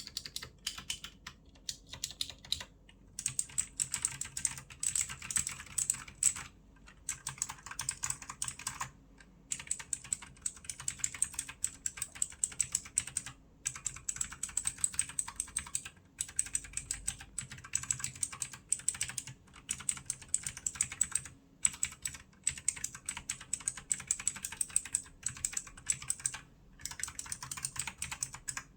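Redragon K688 mechanical keyboard with blue switches being typed on: rapid, crisp clicking keystrokes in fast runs broken by short pauses.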